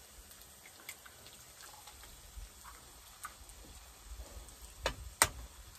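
An egg knocked against the rim of a frying pan: two sharp knocks about a third of a second apart near the end. Faint scattered crackles from the pan of frying cauliflower rice come before them.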